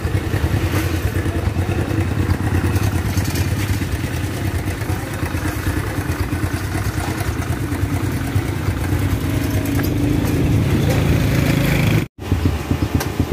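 Motorbike engine idling close by, a steady low rumble. It cuts off suddenly about twelve seconds in.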